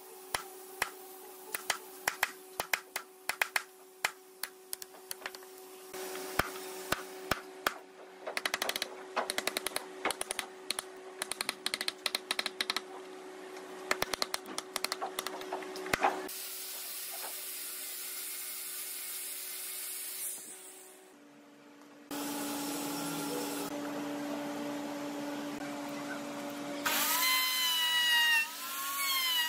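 A hand chisel cutting a dovetail joint in red hardwood, giving many sharp clicks and knocks over a faint steady hum. Steady machine noise follows, and near the end an electric plunge router runs and cuts into the wood, its whine dipping and rising in pitch.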